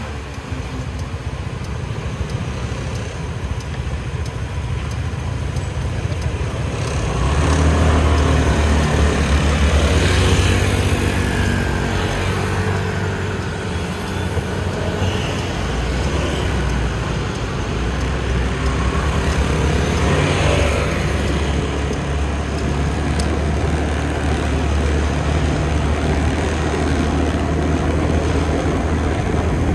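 Scooter riding through city street traffic: a continuous low engine and road rumble with the noise of other vehicles around it, swelling louder about seven to twelve seconds in.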